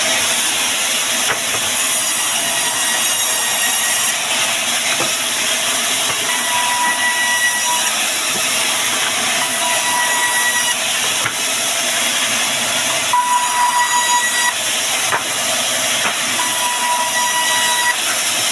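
Band sawmill running through wood: a steady, loud, hissing saw noise. From partway in, a high whine comes and goes about every couple of seconds.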